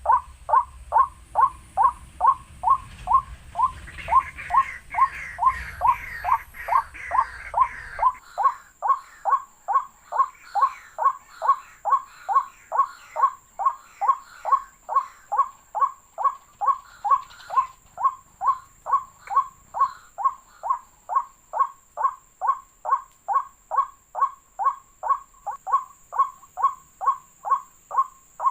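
Waterhen call repeated monotonously, a short falling note about three times a second. Fainter chirps of other birds come in over it for a few seconds, and a low rumble underneath stops abruptly about 8 seconds in.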